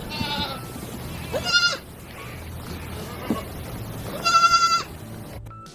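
Teddy goats bleating: three loud, high-pitched bleats, one early, one about a second and a half in and one near the end, with fainter animal sounds between. Background music comes in just before the end.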